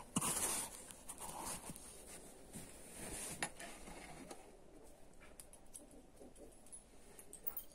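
Faint handling noise of motorcycle starter-motor parts, the end cover and armature, being picked up and moved: a rustle near the start and a few small clicks, the clearest about three and a half seconds in.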